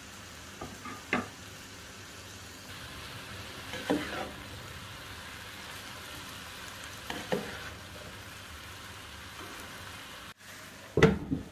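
Vegetables sizzling as they stir-fry in a pan, with a plastic slotted spatula scraping and turning shredded cabbage, peas and potato three times, a few seconds apart. Near the end, after a brief break, come a few louder knocks.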